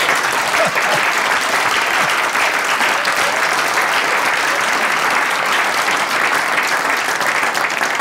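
Studio audience applauding, a dense, steady clapping throughout.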